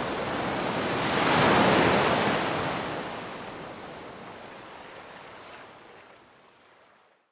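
Ocean waves washing on a shore: a wash of surf that swells to its loudest about a second and a half in, then slowly fades out.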